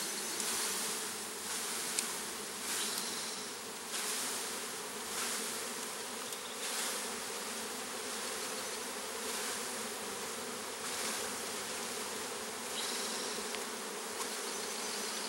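A mass of Italian honeybees buzzing in a steady, dense hum as a package is shaken out into a hive box. A rushing hiss comes every second or so with each shake.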